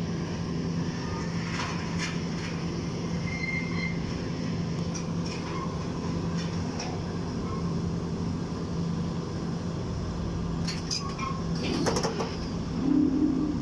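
Sumitomo SH210 excavator's diesel engine running steadily at a constant pitch, with scattered metallic clanks and knocks, a louder cluster of them near the end, followed by a brief louder tone.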